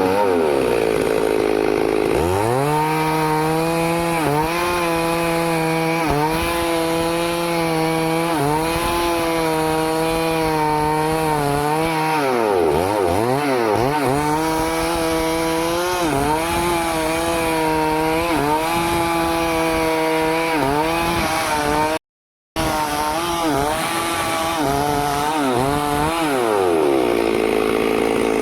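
Two-stroke Stihl chainsaw running at high revs while cutting wood. The engine note holds steady under load, sags and climbs back several times, and drops out for half a second about two-thirds of the way through.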